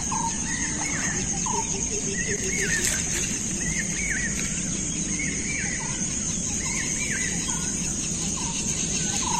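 Birds calling repeatedly, short arched chirps coming every second or so, over a steady high-pitched insect drone and a low rushing background.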